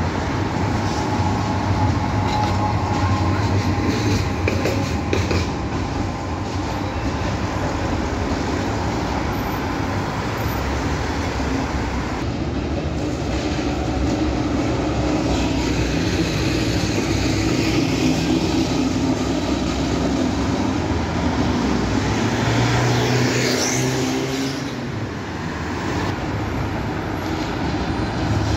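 Bucharest STB trams running along street track, their wheels rolling and clattering on the rails, mixed with passing road traffic. There is a brief high-pitched squeal near the end.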